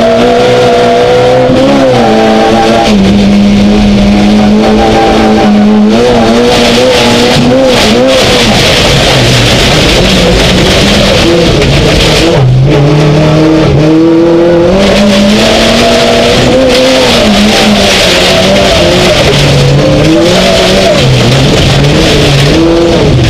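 Inside the cabin of a Super1600 Skoda Fabia rallycross car: its 1.6-litre four-cylinder engine is run hard, the pitch climbing and dropping again and again through the gears, with a brief sharp cut about halfway through. A loud hiss rises under the engine at times.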